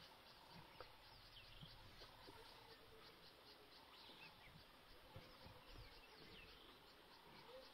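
Faint bush ambience: an insect chirping in a steady, even pulse, with a few short bird calls over it.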